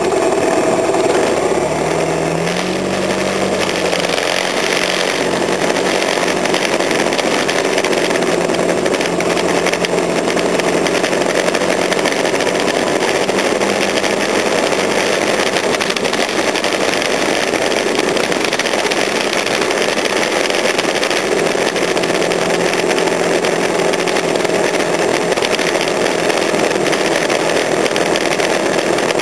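Small motor vehicle engine running steadily under way, with a constant noisy rush over it. The engine's pitch rises about two seconds in, then holds.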